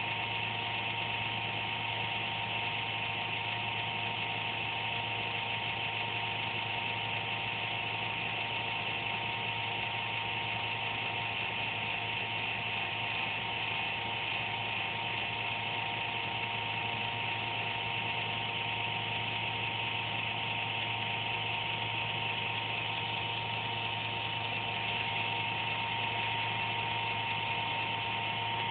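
Desktop computer buzzing steadily, a high tone over a low hum. It is a noise the machine makes at random once or twice a day, and the owner suspects a fan.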